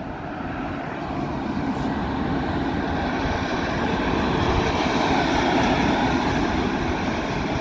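Red DB electric locomotive running light through a station, its wheels rumbling on the rails and its running noise growing louder as it approaches and passes, loudest about five seconds in.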